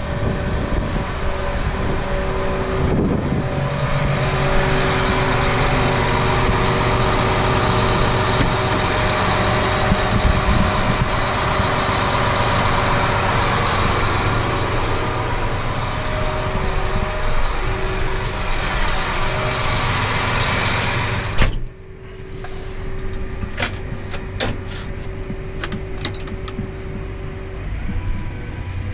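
Large farm machinery running steadily: an engine hum under a loud mechanical rush of noise. About two-thirds of the way through, the rushing noise cuts off suddenly, leaving a quieter engine hum with a few clicks.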